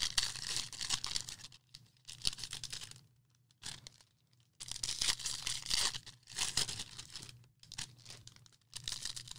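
Baseball card pack wrappers being torn open and crinkled, in irregular bursts of rustling with short silent pauses.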